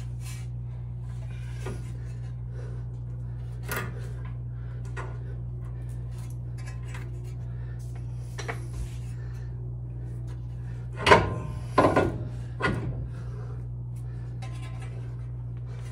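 Metal suspension parts clinking, knocking and rubbing as a lower control arm is worked into place by hand, with a cluster of louder clanks about eleven to thirteen seconds in. A steady low hum runs underneath.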